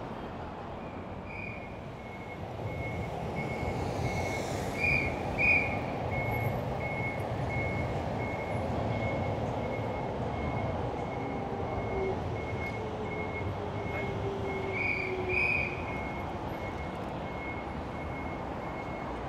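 Street traffic noise under a short, high electronic beep that repeats about twice a second, with a louder two-note chirp sounding a few times.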